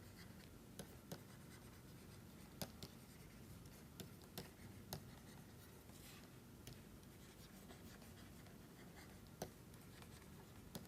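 Faint sounds of drawing by hand: light scratching with scattered, irregular small taps of the pen, over a quiet room hum.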